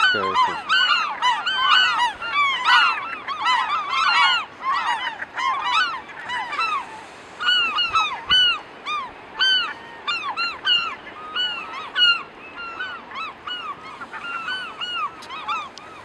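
A colony of gulls calling many at once, short harsh calls overlapping densely for the first several seconds, then thinning out and getting a little quieter. The calling is the gulls' reaction to an elephant seal crawling through their nesting ground.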